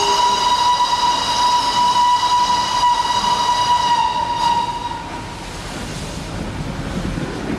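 Train whistle blown in one long steady blast of about five seconds, then the low rumble of the train running.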